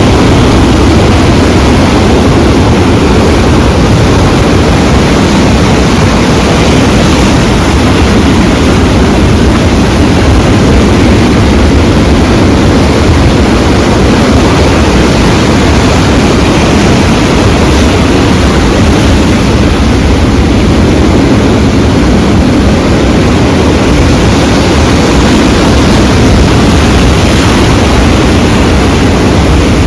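Sea waves and surf making a loud, steady rushing noise, heavy in the low range, with no distinct breaks.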